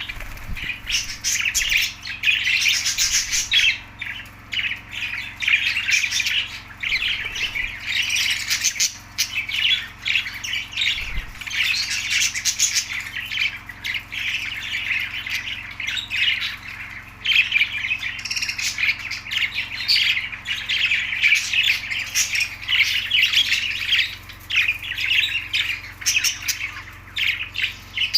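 A flock of budgerigars chattering and squawking continuously, a dense mix of warbles, chirps and harsh calls with no pauses.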